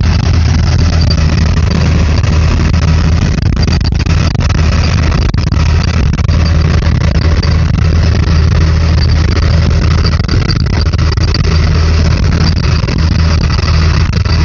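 Tractor engine running steadily while pulling a planter through the field, a constant low drone heard from inside the cab.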